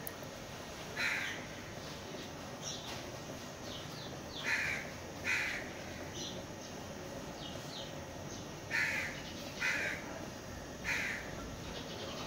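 Crows cawing: six short, harsh caws, some in pairs about a second apart, with a few fainter chirps from other birds.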